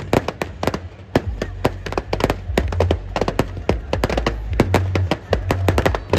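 Firecrackers bursting inside burning Dussehra effigies: rapid, irregular cracks and bangs, several a second, over a steady low rumble.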